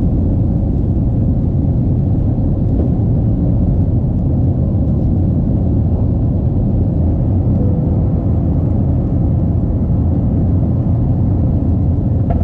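Airbus A321 jet engines at takeoff thrust, heard inside the cabin as a loud, steady rumble with a faint steady hum above it, through liftoff and the first seconds of the climb.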